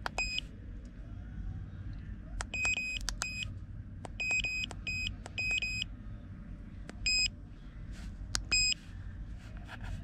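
Autel AutoLink OBD-II code reader beeping as its keypad buttons are pressed: a series of short, high beeps with small clicks, in irregular clusters, as it steps through its menus to read the stored trouble codes.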